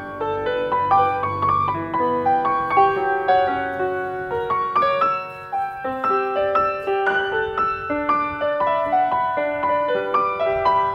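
Background piano music: a melody of short notes over chords.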